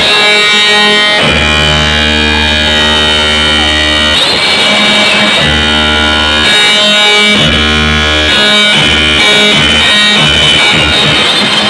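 Loud music from a DJ competition sound system: a sustained, droning melody held over heavy bass that cuts out and comes back several times.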